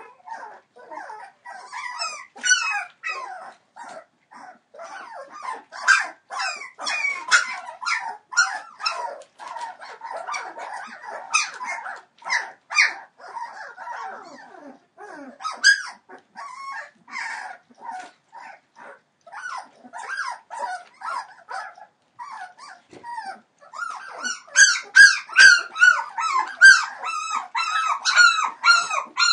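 A litter of three-week-old Entlebucher Mountain Dog puppies whining and squeaking in many short, overlapping calls, which grow louder and come thicker near the end.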